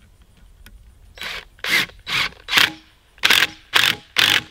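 Cordless driver spinning in about seven short bursts, starting a little over a second in, tightening the clamp of a rubber coupling down onto 1¼-inch vinyl tubing.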